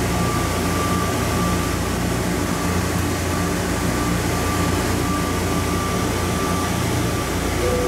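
Hartsfield-Jackson Plane Train people mover running at speed through its tunnel, heard from inside the car: a steady rumble with a constant high whine over it.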